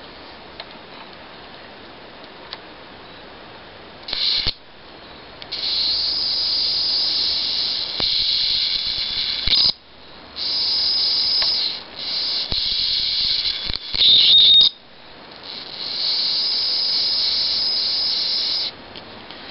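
Tiny high-voltage arcs drawn from a small portable CRT television's flyback transformer: a high-pitched hiss that comes in about six bursts of up to four seconds, each starting and stopping abruptly as the arc strikes and breaks. The loudest burst, about two-thirds of the way through, carries a short whistling tone.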